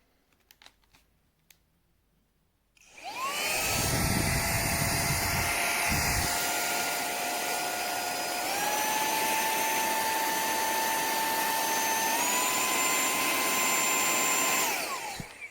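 VEIPAO cordless handheld vacuum/air blower motor switched on, its whine rising as it spins up, then stepping up in pitch twice as it goes through its three power levels before being switched off and winding down.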